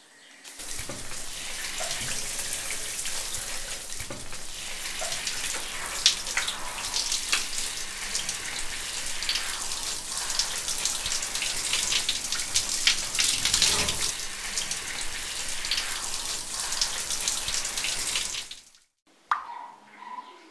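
Shower running from a wall-mounted mixer tap: water spraying and splashing steadily after the lever is lifted about half a second in, then cutting off suddenly near the end, leaving a few drips.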